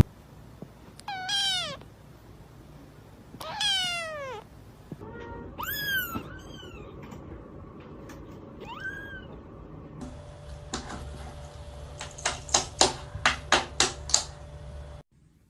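Domestic cat meowing: two long falling meows, then three shorter ones, rising then falling. About ten seconds in the sound changes, and a quick run of about eight sharp taps or knocks, louder than the meows, follows.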